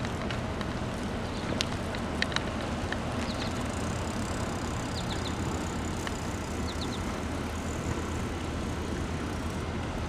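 Steady low outdoor background rumble, with a few light clicks in the first couple of seconds and brief high chirps in small groups of two or three.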